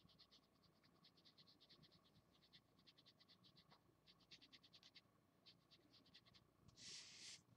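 Felt-tip marker scratching on paper in quick, short strokes, about eight a second in short runs, as an area of the drawing is coloured in. Near the end there is one louder, longer scrape.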